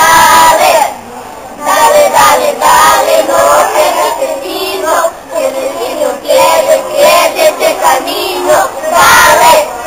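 A group of children singing together in unison, in short sung phrases with a brief pause about a second in.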